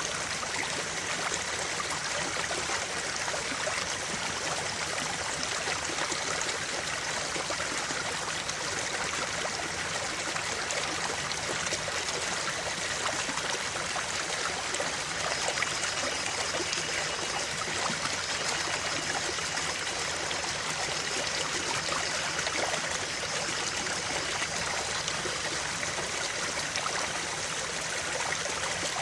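A creek flowing over stones, a steady rushing and trickling of water with no let-up.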